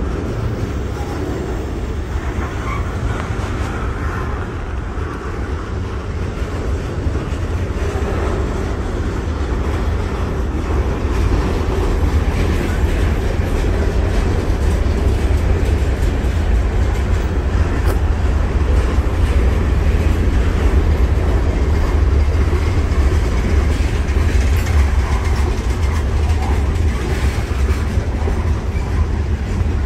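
Mixed freight train of autoracks, covered hoppers, a tank car and boxcars rolling past at close range: a steady low rumble of steel wheels on rail, getting a little louder partway through.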